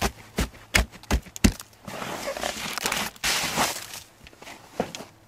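Hands knocking on a frozen crust of snow and ice on a plastic hard cooler lid, five sharp knocks in quick succession. Then a scraping, crunching rush as the icy crust is broken up and pushed off, and one more knock near the end.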